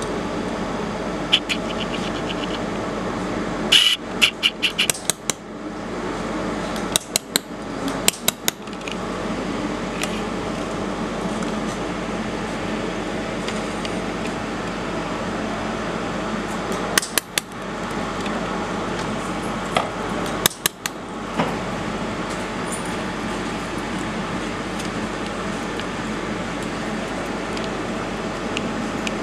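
Steady machine hum, broken four times by short clusters of sharp clicks and taps from a thin laser-cut sheet-metal model being handled.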